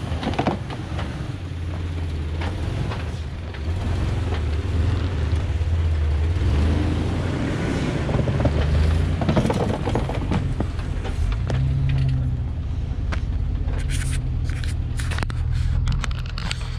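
Jeep crawling slowly over a rocky dirt trail: a steady low engine rumble, with the tyres crunching and scraping over rocks and gravel. A run of sharp clicks and pops comes near the end.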